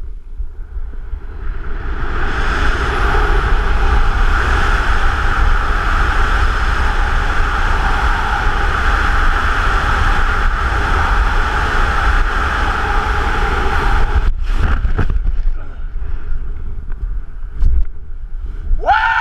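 Freefall wind blowing hard over the camera microphone during a skydive from a hot-air balloon. It builds over the first couple of seconds as the jumper picks up speed from a standstill, then blows steadily with a whistling tone. About fourteen seconds in it falls away sharply with a few brief flaps as the parachute opens.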